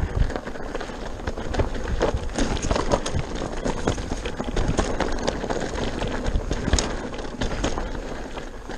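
Pivot Mach 429 Trail full-suspension mountain bike descending a rough dirt and stone trail: tyres crunching over loose gravel, with frequent irregular knocks and rattles from the bike as it hits rocks and bumps.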